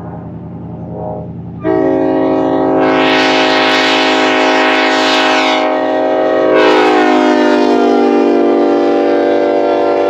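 Ex-Union Pacific Nathan K5LLA five-chime train horn sounding a chord, starting sharply about two seconds in and held to the end. Partway through, its notes shift and settle and it grows slightly louder. A low steady hum comes before it.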